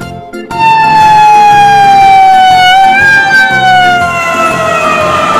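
Ambulance siren sounding one long wail that starts about half a second in and falls slowly in pitch, with a brief upward blip midway.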